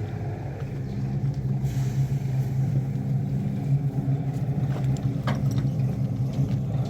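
An engine running steadily with a low, even hum, and a faint click about five seconds in.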